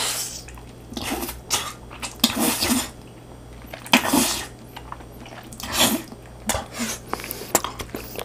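Close-up eating sounds: a man slurping long strands of cheese-covered rosé tteokbokki, a series of short, sharp slurps every second or so with quieter chewing between.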